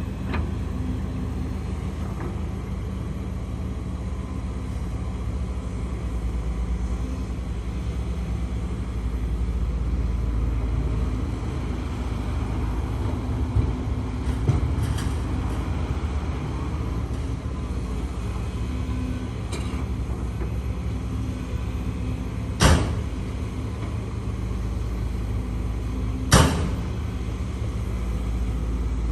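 HIDROMEK HMK230LC excavator's diesel engine running steadily with a low rumble while working. A few light knocks come midway, then two sharp bangs about four seconds apart near the end.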